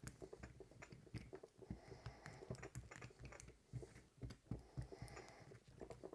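Faint, irregular clicking and scraping as two-part epoxy is stirred in a plastic shot glass, the stirrer tapping and rubbing against the plastic.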